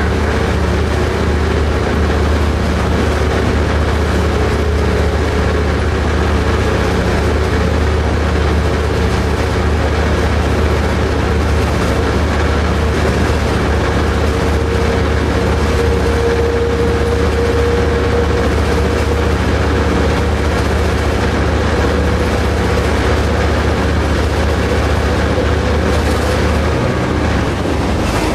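SDNX 2101, an F40PH-2C diesel locomotive, running steadily as heard from inside its cab: a constant deep engine hum with a steady mid-pitched tone over an even rumble of wheels on rail.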